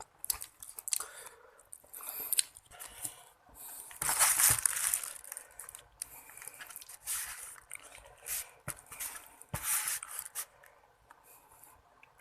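Close-miked chewing and biting of seblak: wet, squishy mouth sounds with some crunching, coming in irregular bursts and loudest about four seconds in.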